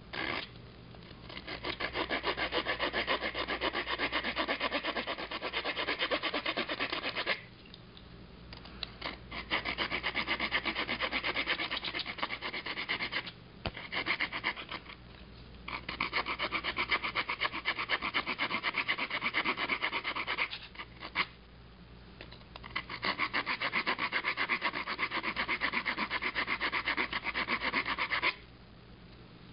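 Swiss Army knife saw blade sawing a notch into a hard oak fireboard: quick back-and-forth rasping strokes in several runs of a few seconds each, with short pauses between them.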